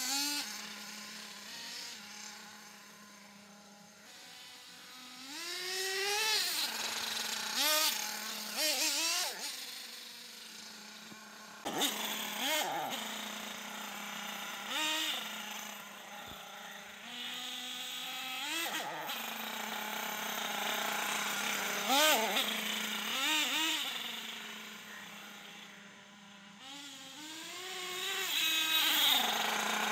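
Nitro RC truggy running on a 4.6 cc two-stroke glow engine from an HPI Savage XL. The engine revs up and down again and again, its whine rising and falling in pitch and growing louder and fainter as the car drives near and away.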